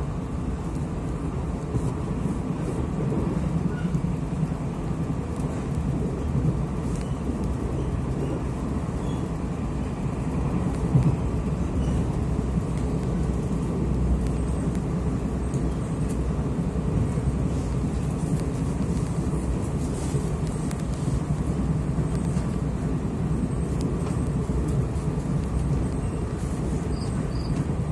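Steady rumble of a Taiwan Railways passenger train running at speed, heard from inside the carriage: wheels on the rails and running gear under the floor. A brief louder knock about eleven seconds in.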